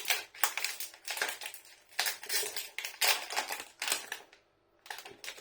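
Plastic snack packet crinkling as it is worked and pulled open, in a series of short crackly bursts with brief pauses between them.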